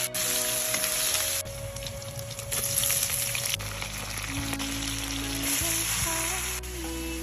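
Food sizzling as it fries in a hot pan, the hiss changing abruptly a few times between short shots, over soft background music.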